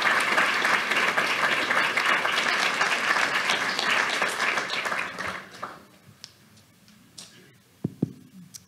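Audience applauding, dying away about five to six seconds in, followed by a few soft knocks and clicks.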